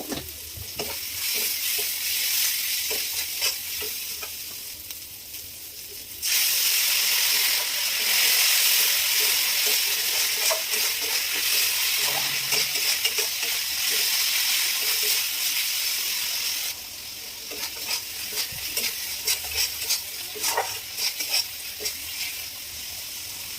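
Spice paste frying in hot oil in a pan, sizzling while a spatula stirs it with frequent scrapes and clicks against the pan. The sizzle gets suddenly louder about a quarter of the way in and drops back suddenly about two-thirds through.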